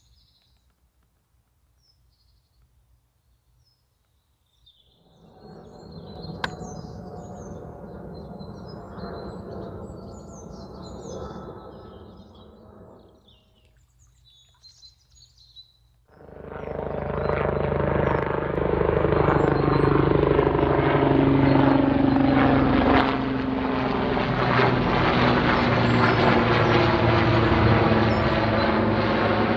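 Small birds chirping faintly, then a fainter rumble that rises and fades. About sixteen seconds in, a loud passing vehicle comes in and drowns out everything else, its tones sliding slowly lower as it goes by.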